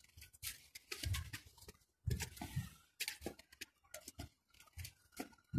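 Footsteps crunching through fresh snow: an uneven run of short crunches, several a second.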